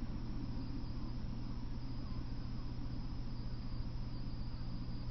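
Steady low electrical hum with an even hiss and a faint flickering rumble underneath, unchanging throughout; no train is passing.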